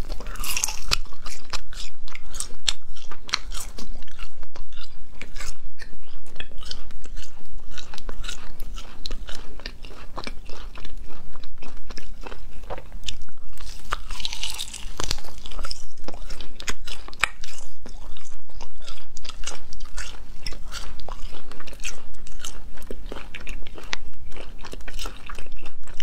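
Close-miked chewing and biting of da la pian, Chinese spicy wheat-gluten sheets: a dense, irregular run of small clicks and crunches that goes on throughout.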